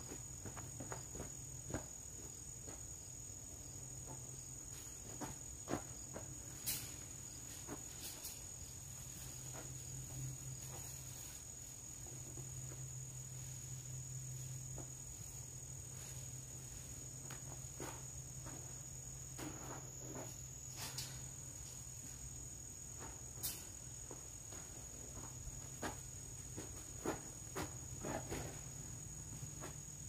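An insect trilling steadily at a high pitch, over a faint low hum, with a dozen or so short light knocks and clicks scattered through it.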